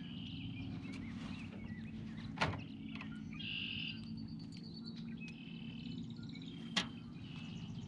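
Songbirds chirping and singing in short trilled phrases, over a steady low hum. Two sharp clicks stand out, one a few seconds in and one near the end.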